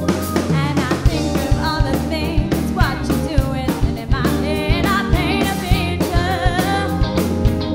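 Rock band playing with singing over it: drums keeping a steady beat under electric bass and electric guitars, with a wavering sung melody.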